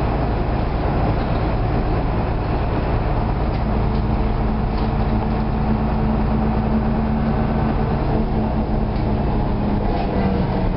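Neoplan city bus heard from inside the passenger cabin while driving: the engine runs steadily, and a steady whine from the ZF gearbox comes in about four seconds in. A few light rattles sound from the cabin fittings.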